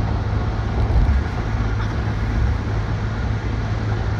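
Steady road noise and low rumble of a moving vehicle, heard from inside it.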